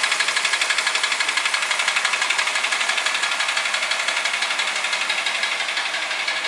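Toyota Ractis's 1.3-litre 2SZ-FE four-cylinder engine running steadily with a rapid, even knocking, about eight or nine a second. The knock persists even with a new timing chain, chain tensioner and chain guides.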